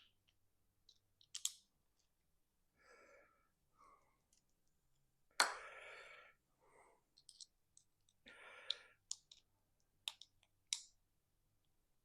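Faint scattered clicks and small knocks of hands working a threaded fitting into place, with a few short breathy sounds of effort in between, the loudest about five seconds in.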